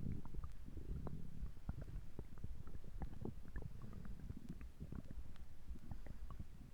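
Stomach gurgling: continuous low churning with many small pops and squelches.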